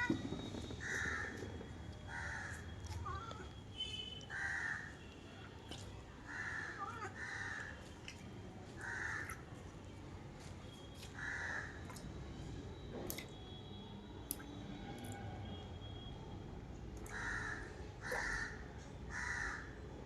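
Crows cawing, a dozen or so single harsh caws spaced a second or two apart, with a lull in the middle and three in a row near the end.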